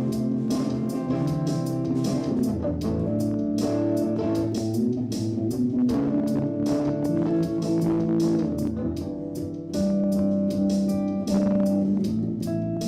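Music: guitar and bass guitar playing sustained notes over a steady drum beat.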